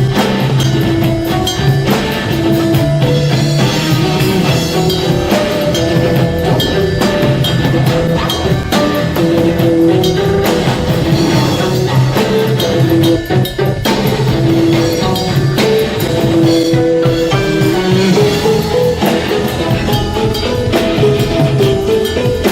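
Drums played with music: a dense, steady stream of drum hits over a pitched melody and bass line, dipping briefly about halfway through.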